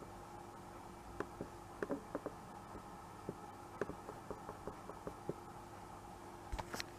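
Scattered light clicks and knocks, about a dozen in all with a few stronger ones near the end, over a faint steady hum.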